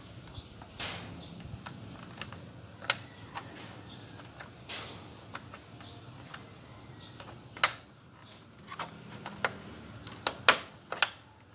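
Plastic grille retaining clips pressed and snapped into place by hand on a plastic front grille: scattered sharp plastic clicks and knocks at irregular intervals, the loudest about two thirds of the way through and near the end.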